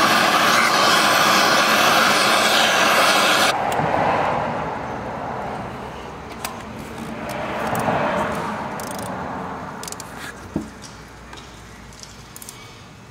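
A big torch running with a loud, steady roar as it heats the aluminium cylinder head around a seized exhaust stud; it cuts off sharply about three and a half seconds in. A quieter rushing sound follows, with a few sharp clicks and light knocks from the quarter-drive ratchet working the stud extractor.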